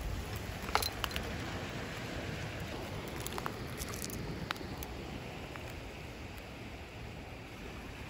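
Steady low wash of surf and wind, with a few sharp clicks of seashells knocking together as a hand sifts through a thick bed of shells, mostly in the first half.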